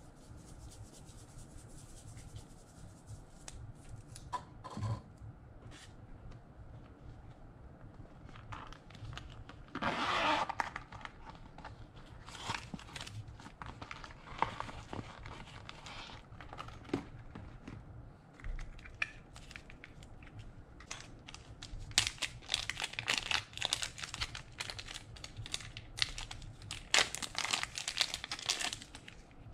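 Shiny plastic clay wrapper crinkling and tearing as it is pulled open, in irregular bursts of crackling, loudest about ten seconds in and again near the end.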